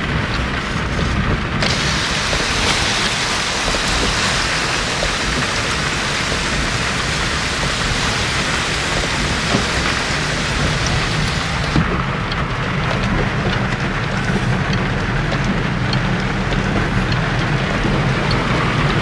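Heavy rain and the hiss of tyres through standing water, heard from inside a moving car, with a low steady engine hum underneath. The rushing noise turns duller about twelve seconds in.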